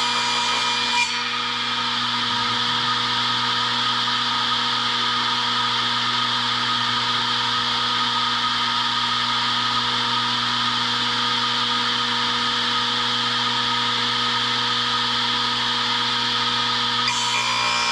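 Electric woodworking power tool running steadily against wood, a continuous hum with an even hiss. The highest hiss drops away about a second in and returns near the end, as the tool's contact with the work changes.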